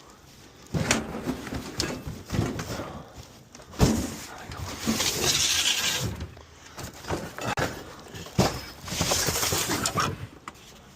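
Scrap and debris being handled: a few sharp knocks and thumps, about 1, 4 and 8.5 seconds in, and two longer scraping noises of a second or two each.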